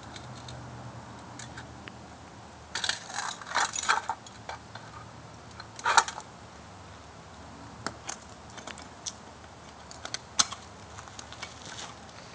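Metal pieces clinking and rattling: a cluster of clatters about three to four seconds in, a sharp clank about six seconds in, then scattered light ticks.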